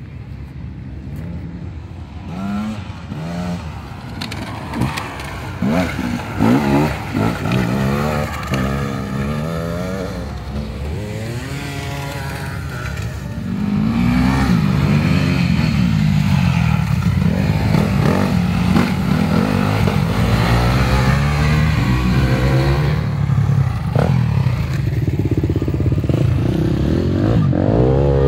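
Several off-road dirt bikes riding past on a dirt track, their engines revving up and down as they accelerate and ease off. About halfway through it gets louder and busier as bikes pass close by.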